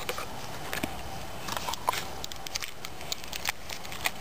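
Scattered light metallic clicks and clinks of a Stihl chainsaw's saw chain and guide bar being handled and worked loose on the saw body.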